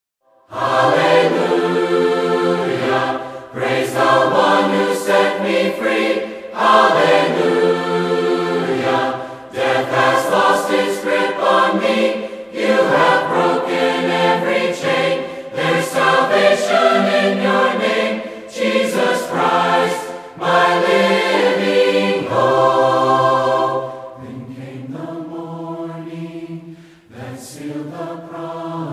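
Large mixed choir of men and women singing together in full voice, in phrases a few seconds long with short breaks between them; about four-fifths of the way through it drops to a softer passage.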